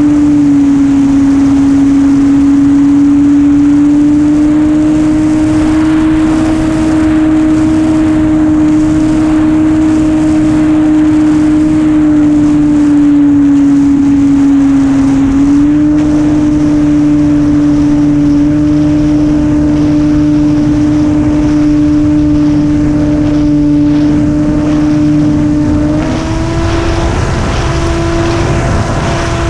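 RC model airplane's engine and propeller heard from the plane's onboard camera, running at a steady pitch with wind rushing past. The pitch eases down slightly at the start, steps up a little about halfway, and rises again near the end as the throttle changes.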